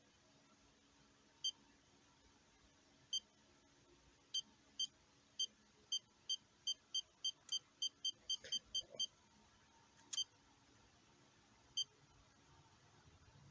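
Short high electronic beeps from an iCharger X8 battery charger as its buttons are pressed to set up a discharge. Two spaced beeps come first, then a quick run of about fifteen that speeds up, then a few more near the end.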